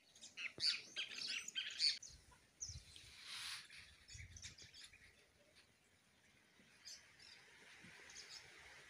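Small birds chirping: a quick, dense run of high chirps at first, then a short hiss about three seconds in and only a few faint, scattered chirps after.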